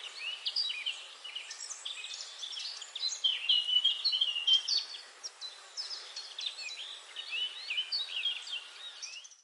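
Birds chirping, many short overlapping calls over a steady background hiss, cutting off suddenly at the end.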